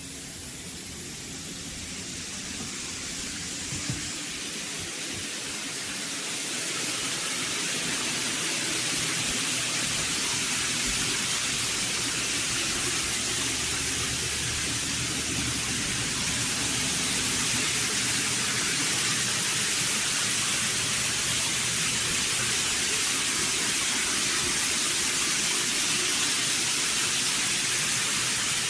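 Shower water pouring steadily, a loud even hiss of spray falling. It grows louder over the first several seconds, then holds steady.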